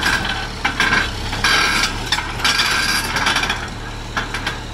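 Hitachi EX150 excavator's diesel engine running steadily, with repeated short higher-pitched bursts of noise over it as the machine works a strap hitched to its bucket.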